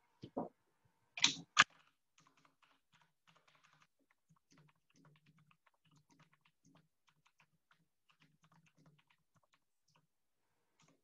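Typing on a computer keyboard: a few louder clicks in the first two seconds, then a long run of soft, quick keystrokes.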